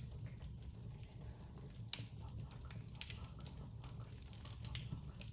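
Small fire crackling with irregular pops and clicks, one sharper pop about two seconds in.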